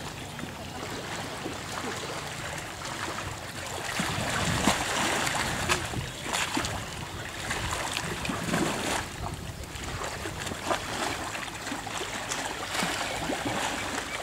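Young elephant rolling and thrashing in shallow river water: sloshing and irregular splashes.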